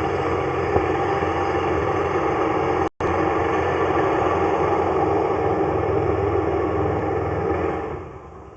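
An engine running steadily, with a brief cut-out about three seconds in and the level falling off near the end.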